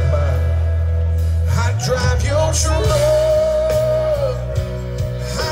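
Live rock band playing through a PA, with a male singer over guitar, drums and congas. A low sustained note carries the first second and a half, then the singing comes in and holds one long note.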